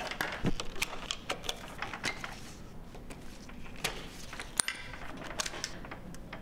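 Irregular clicks, taps and light rattles of metal and plastic parts being handled while a Macintosh TV's chassis is taken apart, with one sharp click about four and a half seconds in.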